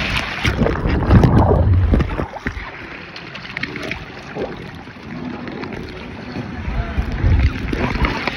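Water rushing down a water slide as the rider slides through it, with a low rumble loudest in the first two seconds, then easing off before building again near the end.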